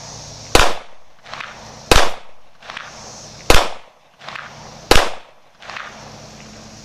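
Four shots from a Springfield XDM 5.25 pistol in .40 caliber, fired at a steady pace of roughly one every one and a half seconds, each with a short echo trailing off.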